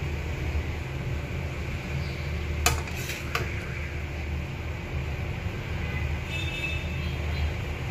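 Metal spatula clinking against a pan and plate as cooked shrimp in sauce are dished up: three sharp clinks close together a little under three seconds in, the first the loudest, over a steady low rumble.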